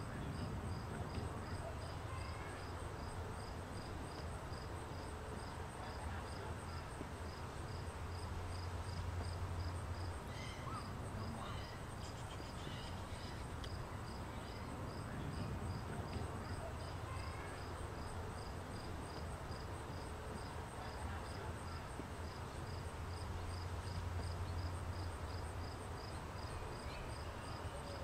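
Crickets chirping in an even, steady pulse, over a low rumble that swells twice.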